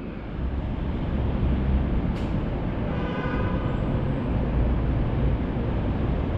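Detroit People Mover train on its elevated guideway: a steady low rumble, with a faint whine coming in about three seconds in.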